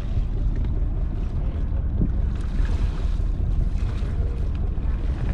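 Wind buffeting the microphone over a low, steady rumble aboard a small wooden fishing boat on open sea, with the hiss briefly louder between two and three seconds in.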